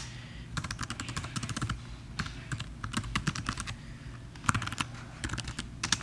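Typing on a computer keyboard: keys clicking in irregular quick runs as a command is typed.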